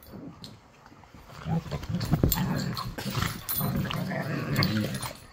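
Two dogs play-fighting, making low growls that start about a second and a half in and carry on in short broken runs.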